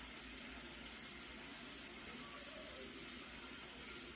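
A faint, steady hiss with no breaks or strikes.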